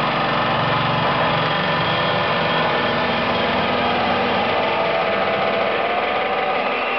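Loud electronic trance music from a DJ set over a large PA, recorded distorted and buzzy. The deep bass thins out about a second in, leaving sustained synth tones.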